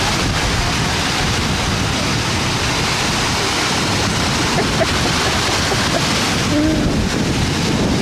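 Small sea waves breaking and washing onto the shore in a steady rush of surf.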